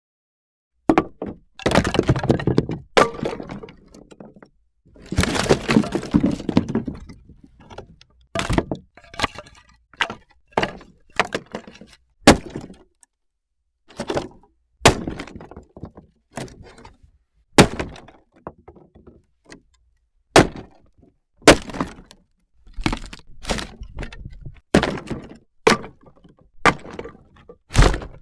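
Firewood logs being tossed onto a pile, clattering and knocking against each other. About eight seconds in this gives way to a series of single sharp knocks, roughly one a second: wood being split.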